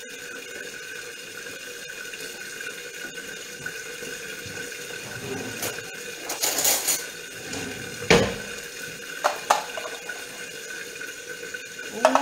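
Steady kitchen hiss with the clatter of cookware being handled: a short noisy rattle around six to seven seconds in, a sharp clunk about eight seconds in, two light clicks soon after, and a few knocks near the end.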